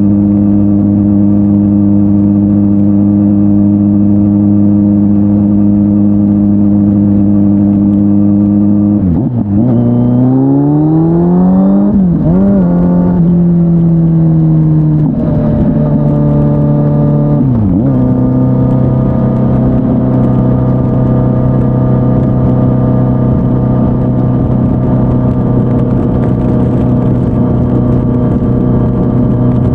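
Kawasaki Z900's inline-four through an SC-Project S1 exhaust. It holds a steady pitch at first, then about nine seconds in it briefly breaks and the pitch climbs as it accelerates. After another break the pitch eases down, and near the middle it settles into a steady, lower-pitched run.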